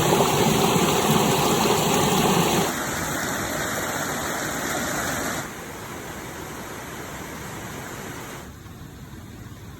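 Steady rushing noise that drops abruptly in loudness three times, as if in separate segments.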